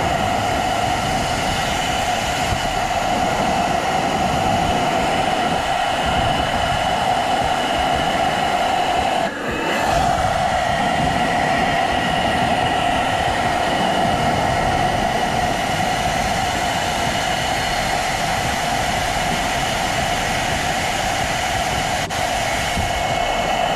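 Philips SenseIQ hair dryer running steadily, a constant rush of air with a steady motor whine. It dips briefly about nine seconds in.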